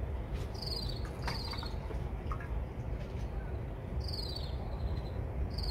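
An insect chirping in short, high, pulsing bursts that fall slightly in pitch: two chirps close together near the start and two more near the end. Under them is a steady low rumble.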